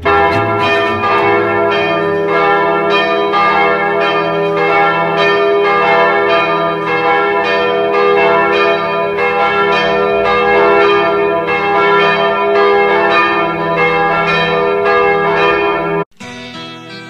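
Church bells ringing a continuous peal of overlapping strokes, each stroke leaving a long ring. The peal cuts off abruptly about a second before the end.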